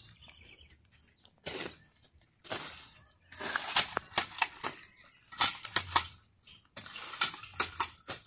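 A hoe chopping and scraping into sandy soil in quick, repeated strikes to open planting holes, alongside a hand-held jab planter being pushed into the ground to sow the seed. The strikes come in short clusters, the loudest in the second half.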